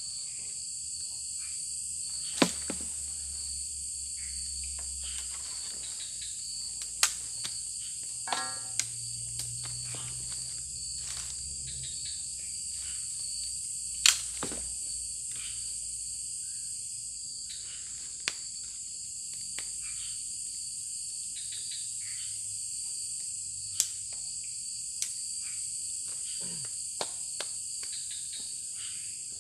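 Steady, high-pitched night chorus of crickets and other insects. Over it come several sharp, isolated clicks or knocks, the loudest about halfway through, and a brief run of rapid ticking about a third of the way in.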